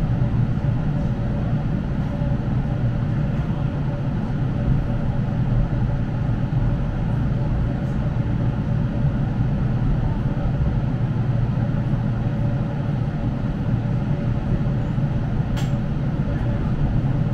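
Interior running noise of a JNR 455/413 series electric multiple unit: a steady low rumble from the wheels and running gear with a faint steady hum, and a few faint clicks.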